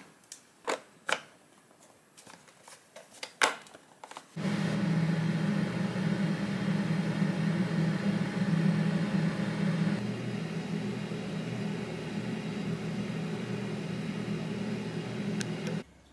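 A few sharp clicks of plastic parts being handled, then about four seconds in a futon dryer's blower starts running: a steady rush of air with a low hum, cutting off abruptly near the end.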